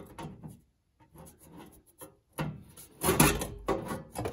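Sheet-metal panel being handled and held up against the firewall: scattered knocks and scraping, with a louder clatter about three seconds in.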